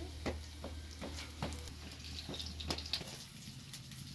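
Potatoes frying in hot oil, crackling with irregular sharp pops.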